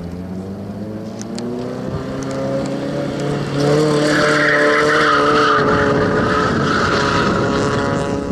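Spec Miata race car's four-cylinder engine held on the throttle, its pitch climbing slowly as the car slides around the skid pad. From about three and a half seconds in, its tyres squeal loudly and steadily as it drifts close by, a sign of the rear tyres sliding at a large drift angle.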